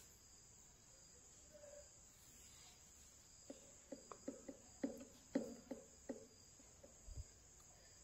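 A quick, irregular run of about a dozen short chirps, starting about three and a half seconds in and stopping around seven seconds. Before them there is near silence.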